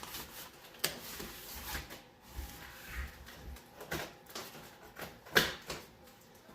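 A cardboard shipping box being handled and opened: scattered knocks and scrapes, the sharpest knock about five seconds in.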